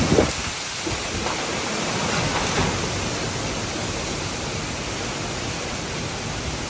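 Steady rushing noise of a severe thunderstorm: heavy rain with strong wind, with no breaks or sudden events.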